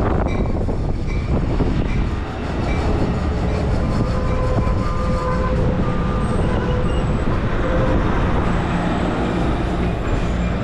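Amtrak Pacific Surfliner bi-level passenger cars rolling past close by: a steady, loud rumble of steel wheels on rail, with faint thin squeals from wheels and brakes coming and going as the train slows into the station.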